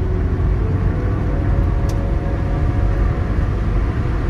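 Inside a moving car's cabin at highway speed: a steady low rumble of tyres on the road and engine noise.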